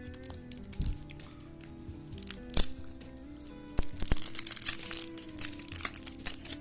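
A foil trading-card pack wrapper crinkling and being torn open by hand. There is a sharp snap about two and a half seconds in and denser crinkling over the last few seconds. Background music plays underneath.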